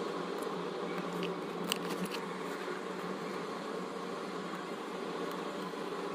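A steady buzzing hum, with a few faint light clicks about one to two seconds in as the diamond-painting pen taps resin drills onto the canvas.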